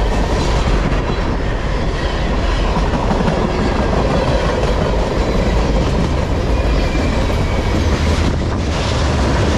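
Freight cars of a long mixed freight train rolling past at close range: a steady rumble with the clatter of steel wheels over the rails.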